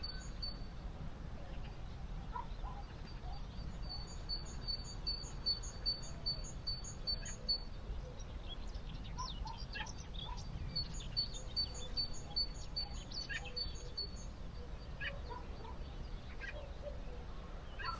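Wild birds singing in the open: one bird repeats a short, high, two-part note about three times a second in two runs of a few seconds each, while other birds chirp here and there. A steady low rumble of outdoor background lies underneath.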